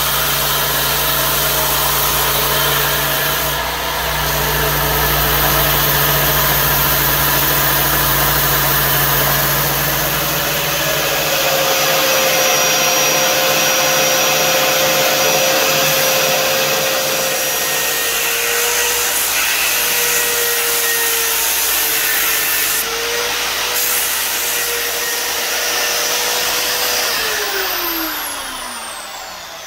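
Electric belt grinders running and sanding a wooden knife handle, the abrasive belt hissing against the wood over a steady motor hum. About eleven seconds in the deep hum gives way to a steady whine from a different machine, and near the end that whine falls in pitch and fades as the machine winds down.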